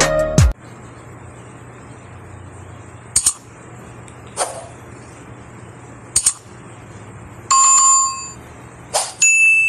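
Animated subscribe-button sound effects: short whooshes a few seconds apart, a bright multi-note chime about seven and a half seconds in as the notification bell pops up, and a ringing ding near the end. A music cue cuts off half a second in.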